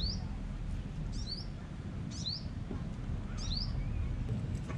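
A small bird chirping four times, about once a second, each call a quick high double note, over a steady low rumble.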